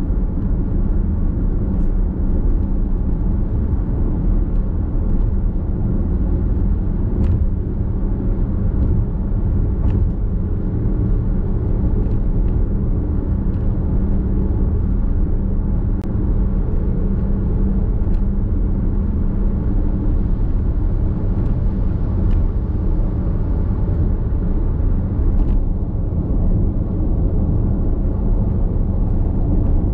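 Steady road and tyre rumble heard inside the cabin of a Nissan X-Trail Hybrid cruising at expressway speed, deep and even, with a few faint ticks.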